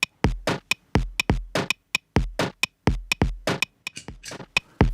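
Drum machine beat played dry: a steady pattern of kick drum, snare and hi-hat hits.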